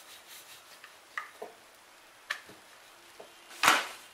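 Soft, rhythmic rubbing of dough at first, a few light taps and knocks, then a short, loud slap as a thin rolled thepla is laid down onto the flat iron tawa near the end.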